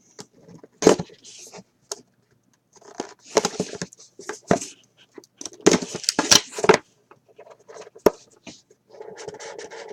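Intermittent rustling, tearing and clicking of packaging and cards being handled as a trading-card box is opened, in irregular bursts.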